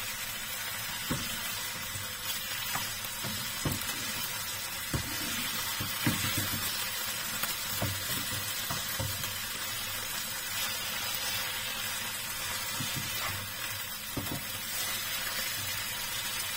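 Salmon belly pieces sizzling in oil in a frying pan, with a steady hiss broken by scattered knocks of a plastic spatula against the pan as the pieces are stirred and turned. The fat is rendering out of the fish into the pan.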